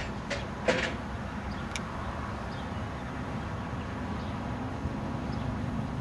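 Hi-rail service truck rolling slowly along the rails, a steady low engine and rolling rumble. A few sharp clicks sound in the first two seconds.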